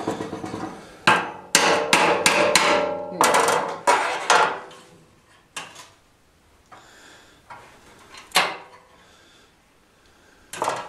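Hammer blows on a hand tool held against 18-gauge sheet steel, forming a louver: a quick run of about a dozen strikes in the first five seconds, the sheet ringing after several of them. Then three lone knocks, well apart.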